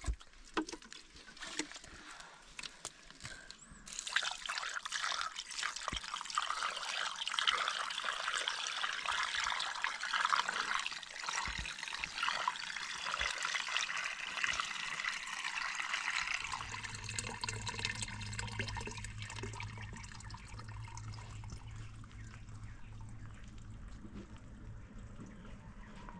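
Liquid trickling and splashing for several seconds, then fading; a low steady hum comes in about two-thirds of the way through.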